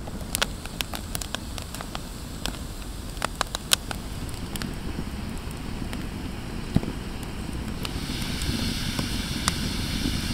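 Campfire of split firewood crackling, with irregular sharp pops over a low steady rush. A hiss builds near the end.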